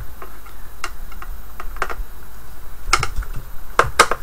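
Irregular clicks and taps of a long screwdriver working at a screw inside a wooden subwoofer cabinet, with a few louder knocks toward the end.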